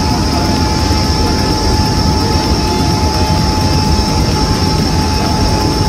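A steady, loud rumbling drone with a constant hum on top that does not change.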